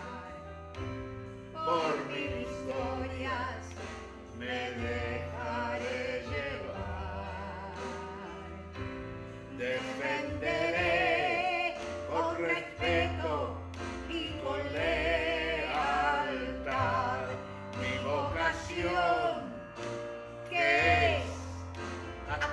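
A man and a woman singing a song together in Spanish, their voices wavering with wide vibrato, over an instrumental accompaniment of sustained low notes.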